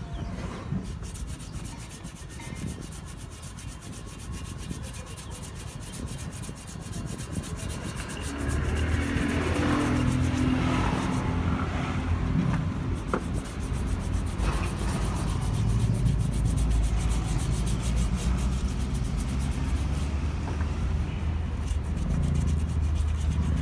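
Hand sanding of hardened filler on an aluminum car wheel with 80-grit sandpaper, a rough rubbing scrape. About eight seconds in, a vehicle engine starts running underneath and becomes the loudest sound.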